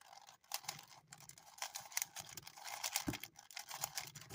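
A Rubik's brand 3x3 cube, a stiff-turning non-speed cube, being turned by hand: a quick, irregular run of light plastic clicks and clacks as the layers snap round.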